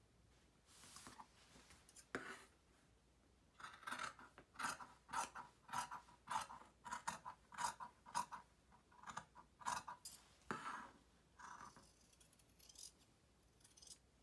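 Fabric shears cutting through plaid wool: a run of short, crisp snips, about two a second, strongest through the middle of the stretch, with fainter, scattered cuts before and after.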